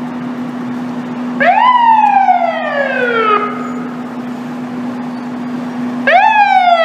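Fire engine siren sounded twice in short bursts. Each burst rises quickly in pitch, then winds down in a slow falling glide that cuts off, over a steady low hum.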